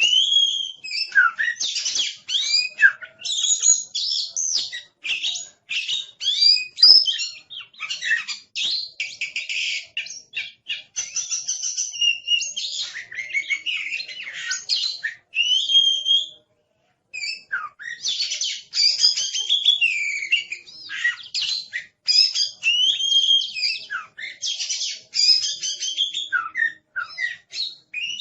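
Oriental magpie-robin (kacer) singing a fast, busy song of varied whistles, rising and falling sweeps, chirps and rapid trills, almost without a break; it pauses briefly a little past the middle.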